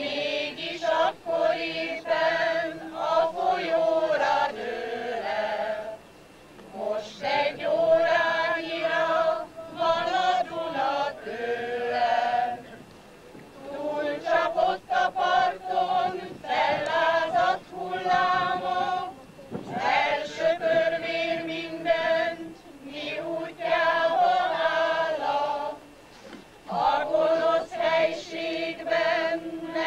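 A choir singing in phrases of about six seconds, with short pauses between them.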